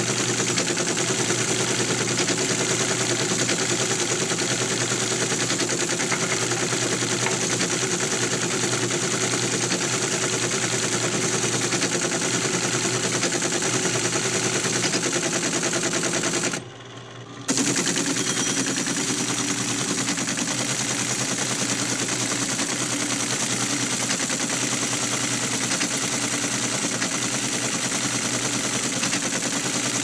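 Typewriter typing rapidly: a dense, unbroken stream of key strikes that stops for a moment about seventeen seconds in, then carries on.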